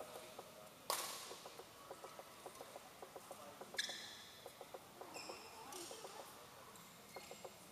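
A single sharp smack about a second in, then two short high squeaks of court shoes on the hall floor as the players shift position.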